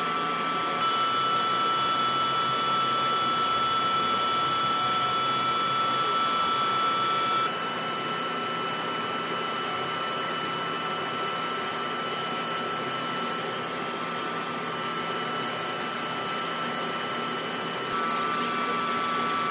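Steady high-pitched turbine whine over a rumble of engine noise. Its tone shifts abruptly shortly after the start, about a third of the way in, and again near the end.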